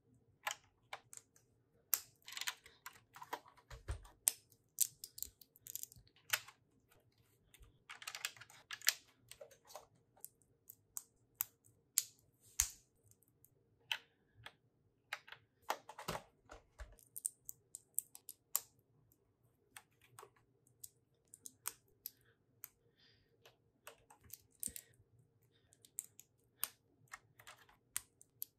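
Lego bricks being handled and pressed together: a rapid, irregular run of small plastic clicks and taps, with a couple of brief rustles.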